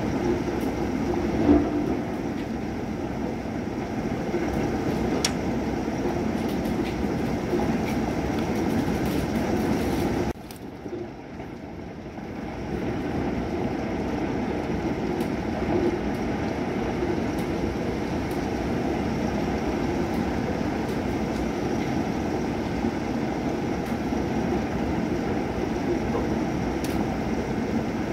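Thunderstorm: steady rain with a low, continuous rumble, and a brief sharp sound about a second and a half in. About ten seconds in the sound drops off suddenly, then builds back up over the next few seconds.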